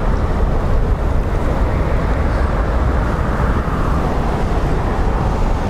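Strong gale wind buffeting the microphone outdoors: a steady low rumble with a rushing hiss over it.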